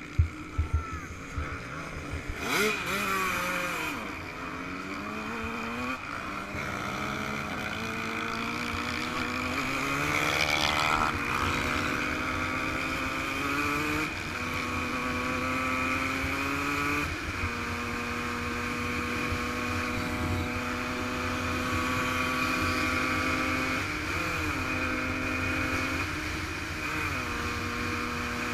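Yamaha YZ125 125cc single-cylinder two-stroke motocross engine pulling hard through the gears, its pitch climbing and dropping back at each shift, then held at a steady high rev for the last third with a couple of brief dips. A few sharp knocks in the first second or two.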